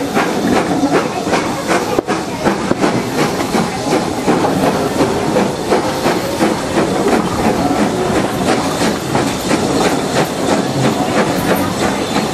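Steam-hauled train running, heard from the carriage: a rapid, even beat of exhaust chuffs and wheels clicking over the rails, with a hiss of steam.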